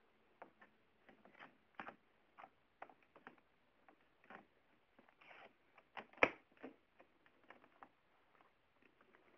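Scattered clicks, taps and soft rustling from handling an IBM ThinkPad laptop as its battery and charger are put back in, with one sharp click about six seconds in.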